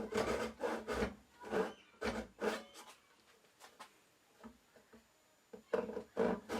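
Hand saw cutting across the corner of a wooden mitered box to make a spline kerf, in short back-and-forth strokes about two a second. The strokes stop for a couple of seconds midway and start again near the end.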